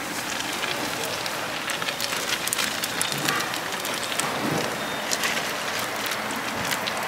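Hot oil in a deep fryer sizzling, with many small crackling pops, as battered seaweed rolls (gimmari) fry.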